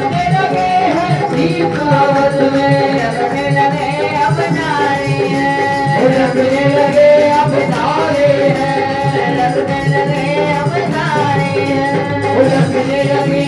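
Devotional bhakti song: a voice singing long held notes with slides between them, over instrumental and drum accompaniment.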